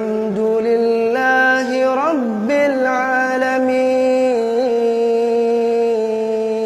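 A single voice chanting a long, wordless melodic line with ornamented pitch slides, then holding one steady note through the second half.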